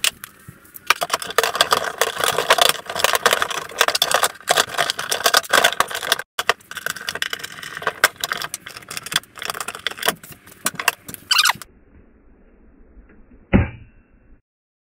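Dense crackling, rattling and scraping of handling as a plastic consumer unit lid is fitted over packed paper and straw. After a quieter stretch, one sharp click with a brief ring near the end.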